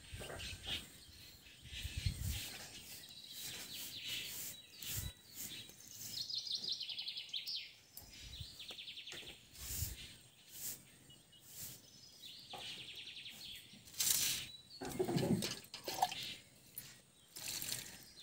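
Birds chirping with rapid high trills several times, over short clicks and knocks of vegetables being cut on a boti blade and steel dishes being handled, loudest in a cluster about two-thirds of the way through.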